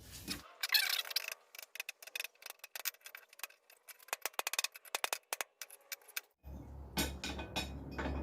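Light, irregular metallic taps and clinks of tools on the steel corkscrew coil as it is shaped, coming in a quick flurry in the middle. Near the end a low steady hum comes back in.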